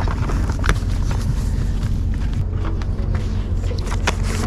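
Steady low rumble of open-air outdoor ambience, with a few sharp clicks from plastic CD jewel cases being handled.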